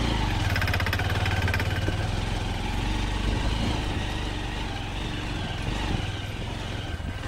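Honda SP 125's 124 cc single-cylinder engine running steadily in low gear as the motorcycle rolls slowly over a rough dirt track. It is a little louder in the first few seconds, then eases slightly.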